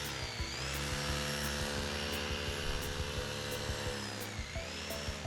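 A BuWizz-motor-driven fan propeller on a LEGO airboat whines at high speed. Its pitch dips and comes back up just after the start and again about four seconds in. Background music with a steady beat plays under it.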